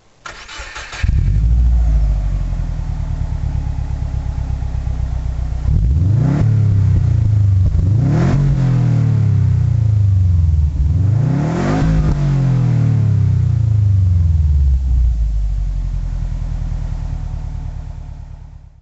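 2008 Subaru Impreza WRX's turbocharged flat-four running through an SPT aftermarket exhaust, heard at the tailpipes: idling, then revved three times, about six, eight and twelve seconds in, each rev rising quickly and falling back to idle.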